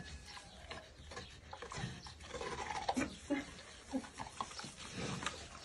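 Domestic pig eating fruit ice cream from a hand: an irregular run of small wet smacks and chewing clicks, with a few soft low grunts.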